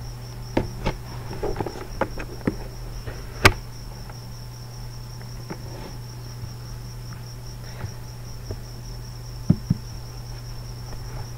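Computer mouse clicks, scattered and sharp, with a quick double click near the end, over a steady high-pitched pulsing tone and a low hum.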